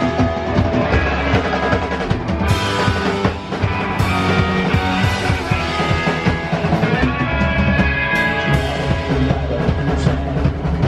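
A punk rock band playing live: electric guitars, an upright double bass and a drum kit.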